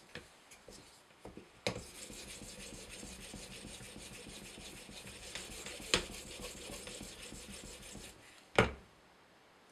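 A 2000-grit water stone on an Edge Pro sharpener arm stroked back and forth along a CTS-20CP steel knife edge: a steady gritty rubbing of stone on steel, starting after a few small clicks. A sharp tap about six seconds in and a louder knock near the end, when the strokes stop.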